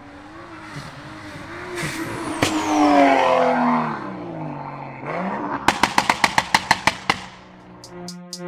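Car engine revving up and then falling back. This is followed by a rapid string of about ten sharp exhaust pops in a second and a half. Music begins just before the end.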